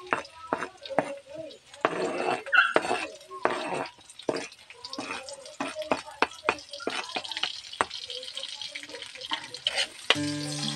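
Metal spoon tapping and scraping chopped onion and garlic off a chopping board into a hot wok, clattering against the wok with a light sizzle of frying. Music comes in near the end.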